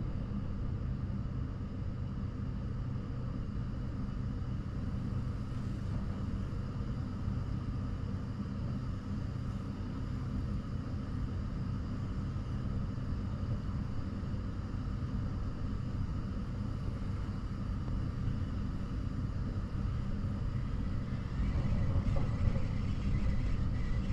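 Steady low mechanical drone, like an engine or motor running, holding even and growing a little louder near the end.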